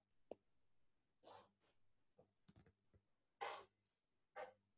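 Near silence with a sharp click early on and a few short, soft rustling noises spread through the rest.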